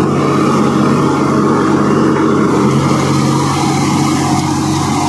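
Solis 5220 tractor's diesel engine running at a steady note under heavy load, driving a rotavator that churns through hard, wet soil.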